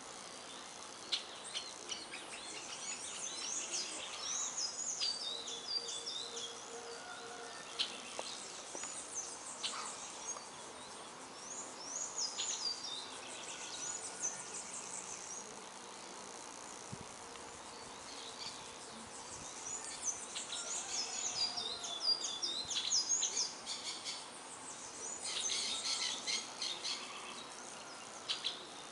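Several wild birds chirping and singing in bouts of quick, high notes and short whistled phrases over a steady background hiss. Bees buzz faintly at flowering trees.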